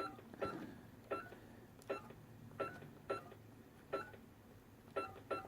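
Buttons being pressed one by one on a vintage AT&T HT 5300 cordless phone handset, each press giving a short click and key beep: about eight presses at an uneven pace, as when dialing a number.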